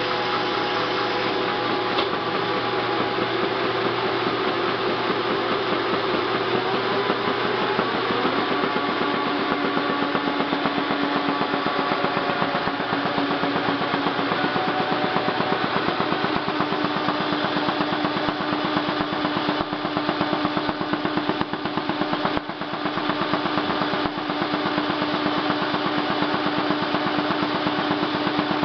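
Halm Super Jet two-colour perfector offset envelope press running at speed, with a fast, steady mechanical clatter over a motor hum as envelopes feed through.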